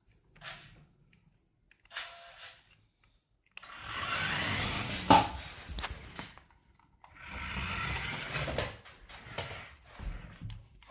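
Toy remote-control car's small electric motor whirring in short spurts and then two longer runs, with a few sharp knocks, the loudest about five seconds in.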